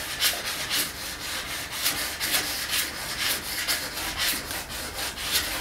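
Large kitchen knife sawing back and forth through the stacked pleats of a pleated blackout blind, guided along a steel square, in quick scraping strokes of about three a second.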